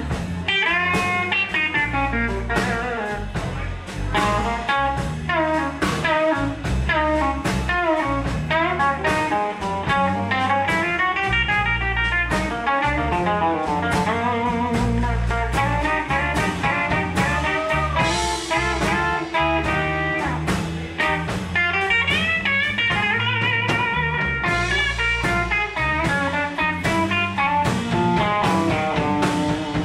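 Live electric blues guitar solo with many bent notes over a band with drums.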